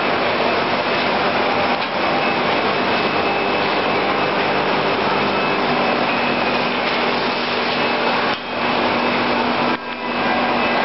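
Wohlenberg City 4000 perfect binder running in production: a steady, dense mechanical whirr with a constant low hum as books are carried through the machine. The sound dips briefly twice near the end.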